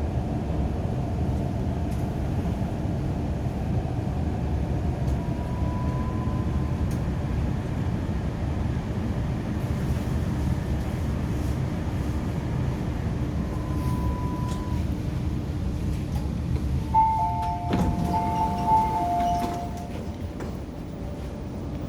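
MTR Kwun Tong Line Q-train running, a steady low rumble of wheels and running gear with a couple of brief whines. Near the end two steady high tones sound together with a click, and then the train noise drops as it slows to a stop.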